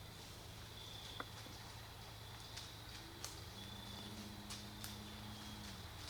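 Faint, sparse clicks and crackles over a steady low hum, with a low steady drone of about two seconds in the second half.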